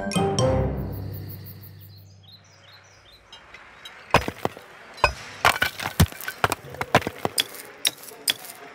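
A deep boom that fades away over the first two seconds. About four seconds in, cartoon hammer-and-chisel strikes on stone begin: a quick string of sharp knocks, roughly three a second.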